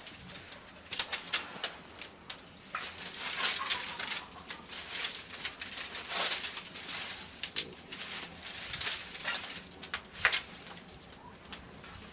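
Dry twigs and branches snapping and rustling as they are broken by hand and fed to a wood fire crackling in a clay tandoor. The sharp cracks come irregularly.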